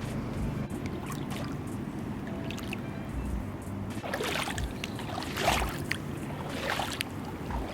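Background music, with several broad whooshing swells of noise in its second half.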